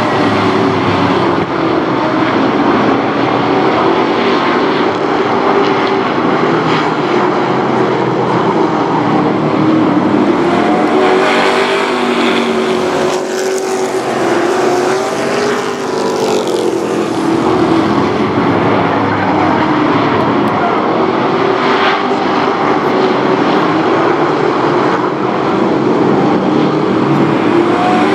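A pack of race trucks' engines running at speed around a short oval, the engine notes rising and falling as the trucks pass by and go into and out of the turns.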